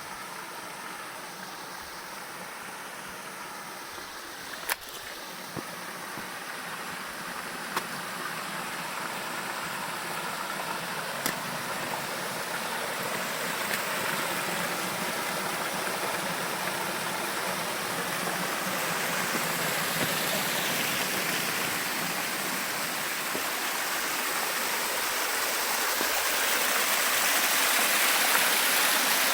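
Rushing water of a stream and waterfall, a steady hiss that grows louder throughout, with a few sharp clicks in the first half.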